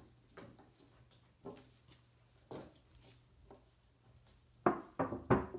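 A stuck plastic cap on a metal can of boiled linseed oil being twisted and worked loose by hand: scattered faint clicks and knocks, then three sharp clicks in quick succession near the end.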